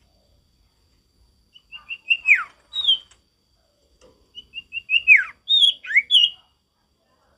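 Common iora (sirtu, cipoh) singing twice, each phrase a run of short quick notes sliding into a long falling whistle, then one or two higher notes.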